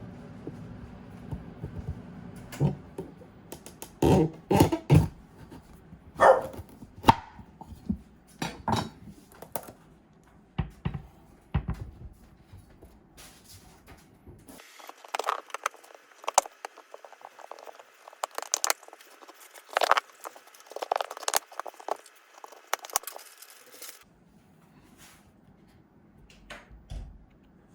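Kitchen handling sounds: dishes, utensils and containers clinking and knocking at irregular moments, some strokes ringing briefly.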